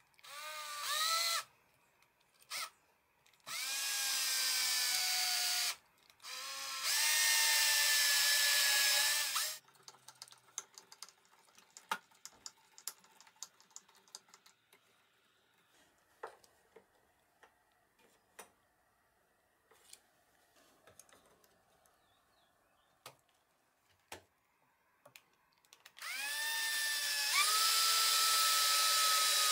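Cordless drill/driver drilling into a plywood block through the bore of a small ball bearing, in several runs of a few seconds: each time the motor whine rises as it spins up, then holds steady. In the long pause between runs there are only small clicks and taps of handling.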